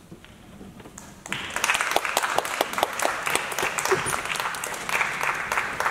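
Audience applauding, breaking out about a second in after a brief hush and carrying on as steady clapping.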